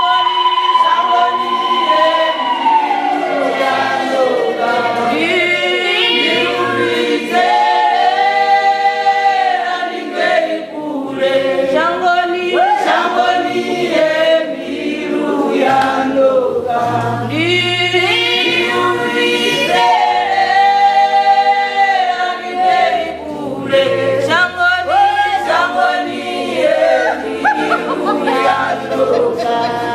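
A church choir singing a gospel song in Tshivenda, many voices in harmony.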